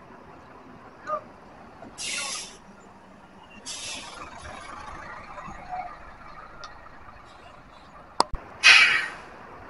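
Bus air brakes letting off air in three short hisses: about two seconds in, near four seconds, and the loudest near the end, with a sharp click just before the last one.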